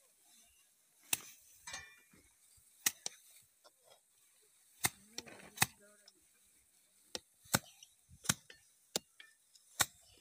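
Rice bundles being beaten by hand against the threshing floor to knock the grain loose: a dozen or so sharp whacks at uneven intervals.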